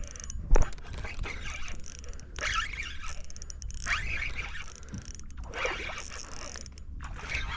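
Spinning reel being cranked in uneven bursts, its gears ratcheting as a hooked fish is reeled in, with one sharp knock about half a second in. Wind rumbles low on the microphone.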